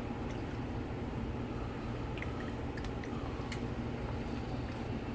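Spoon stirring the gumbo in the pot, a wet squishing of the liquid with a few light clicks of the spoon against the pot around the middle, over a steady low hum.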